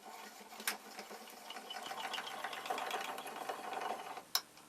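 Hole saw in a post drill cutting a steel disc, the drill's gearing ticking in an even rhythm. There is a sharp click about a second in and another near the end.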